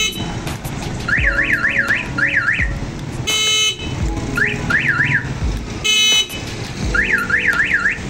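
A motorcycle's newly fitted 1122-type mini siren sounding in three short bursts of fast rising-and-falling yelp, about three sweeps a second. Two short honks of the bike's stock electric horn come between the bursts as the horn switch is tested.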